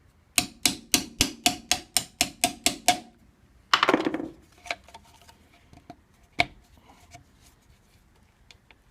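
A quick run of about eleven hammer blows on metal, each with a short ring, about four a second. Then a brief scraping burst and a few scattered metallic clinks.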